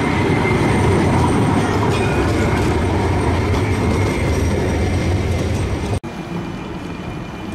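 GVB CAF Urbos 100 low-floor tram running on street track: a heavy rumble of wheels on rail with a thin, steady high whine over it. About six seconds in, the sound cuts off abruptly to a quieter, lower rumble.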